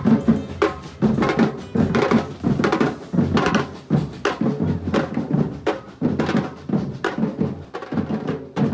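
A large samba-reggae drum group of surdo bass drums played with mallets, beating a driving rhythm in unison with dense, evenly repeating strokes.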